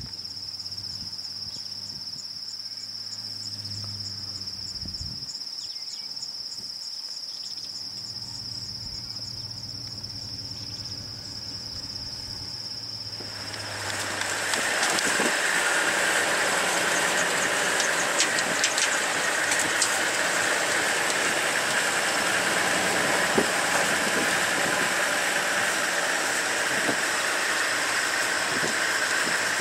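A steady high insect trill, cricket-like, over a low hum for the first half. About halfway in the sound cuts to louder, steady vehicle noise: a safari vehicle's engine running and driving across the grassland.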